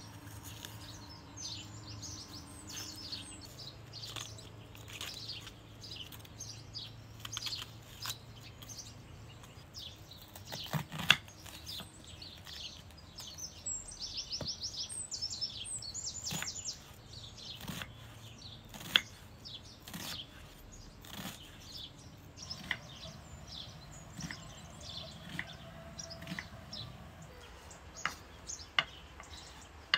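Small birds chirping on and off, with a few sharp clicks or knocks, the loudest about eleven seconds in.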